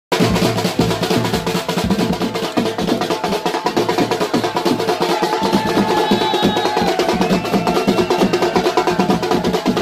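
Fast, steady drumming on a large street drum beaten with a padded stick, with people shouting over it.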